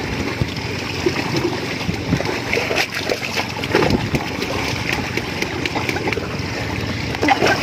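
Sea water splashing and sloshing around people wading waist-deep in small choppy waves, a steady wash with a few brief splashes.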